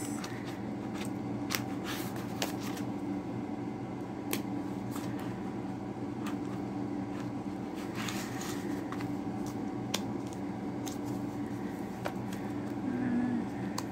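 Steel nail-stamping plates being slid into and tapped against the clear plastic sleeves of a zippered storage case: scattered light clicks and plastic rustling, over a steady low hum.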